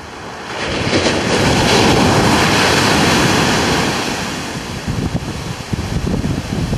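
Surf breaking on a sandy beach: a wave crashes and washes up the sand, swelling about half a second in and easing off after about four seconds, with wind buffeting the microphone.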